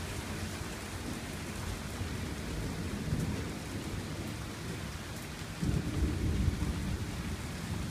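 Thunder rumbling low under a steady hiss of rain, with a louder roll of thunder swelling about six seconds in.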